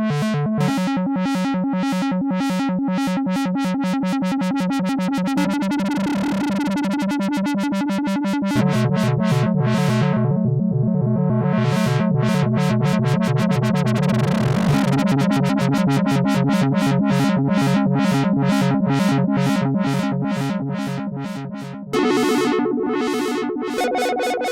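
Sequential Prophet 6 analog polyphonic synthesizer playing dry, with no effects: sustained chords with a fast, even pulse, changing chord a few times. About ten seconds in the tone darkens and then brightens again, as the filter sweeps closed and open.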